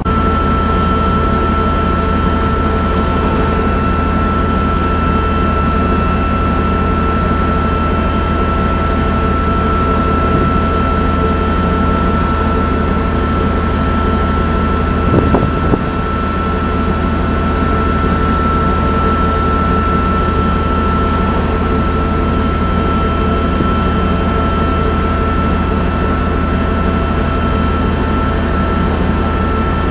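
Lifeboat davit winch running steadily as it hoists the enclosed lifeboat, a low mechanical hum under a steady high whine. A brief knock comes about halfway through.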